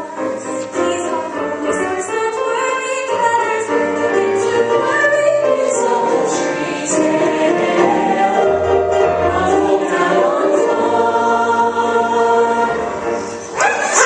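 Cast ensemble singing a lively stage-musical number over instrumental accompaniment, heard from the audience seats. A brief loud burst of noise cuts in near the end.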